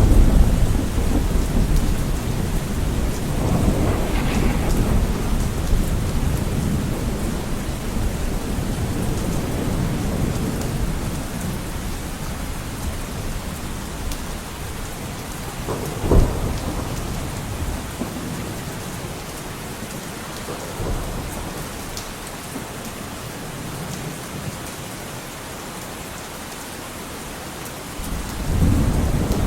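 Steady rain falling, with rolling thunder: a heavy low rumble at the start, a sharp crack about sixteen seconds in, and another rumble building near the end.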